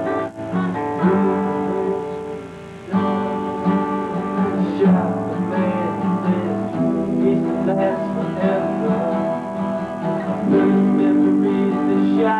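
Acoustic guitar being strummed, chords ringing on. The playing thins out about two seconds in, then comes back strongly about three seconds in.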